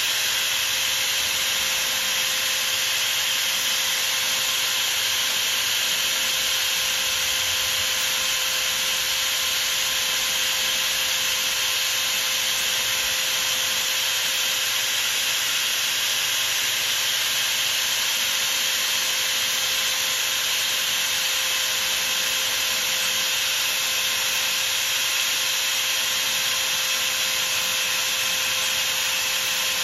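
Small lathe running steadily with a constant motor whine, while abrasive paper rubs against the spinning brass workpiece with a steady hiss as it is sanded smooth.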